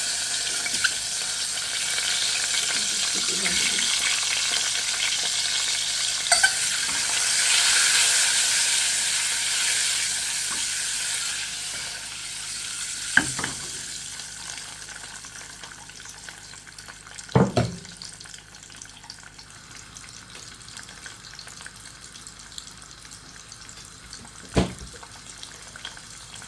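Egg and potato frying in hot oil: a loud sizzle that fades to a lower hiss about halfway through. A few sharp knocks are heard over it.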